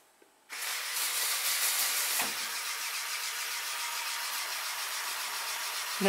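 The robot's pneumatic compressor starts suddenly about half a second in and runs on with a steady, hissy whirr, building air pressure for the Lego pneumatic cylinders. There is a single knock about two seconds in.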